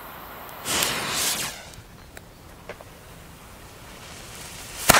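Small Feistel firecracker: a short fizzing hiss as its fuse is lit about a second in, then one sharp bang near the end, not as loud as hoped.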